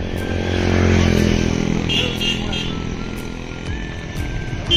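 A motor vehicle, likely a motorcycle, passing close by in traffic: its engine noise swells to a peak about a second in, then fades. Short high beeps sound around two seconds in.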